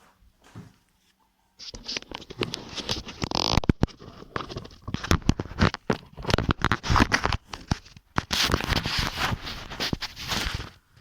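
Fast typing on a keyboard: a dense, rapid stream of key clicks starting about a second and a half in, with a brief pause near eight seconds.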